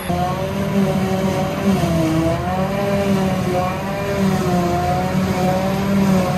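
Claas self-propelled forage harvester chopping grass silage, with the tractor alongside: a loud, steady machine drone with a whine that drifts slowly up and down in pitch as the load changes.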